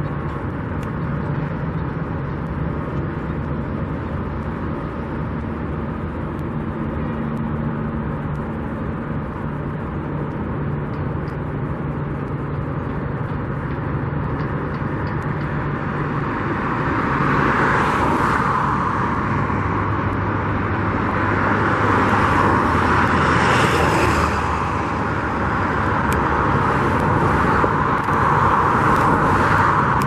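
Road traffic: a steady hum of motor vehicles, then vehicles passing by more loudly in the second half, their tyre and engine noise swelling and fading several times.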